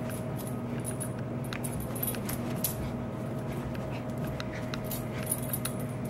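A Maltese puppy scampering about on carpet, with scattered light clicks and jingles over a steady low hum.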